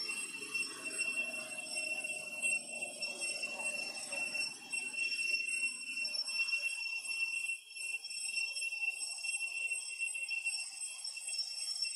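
Forest insects keeping up a steady, high-pitched ringing drone, with a faint low murmur of background noise through the first half.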